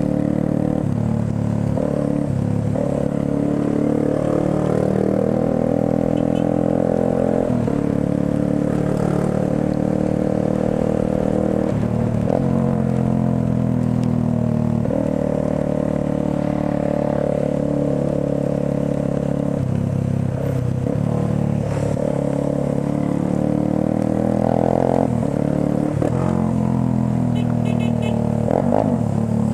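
Motorcycle engine running under way, heard from the rider's seat, its pitch rising and falling several times with the throttle.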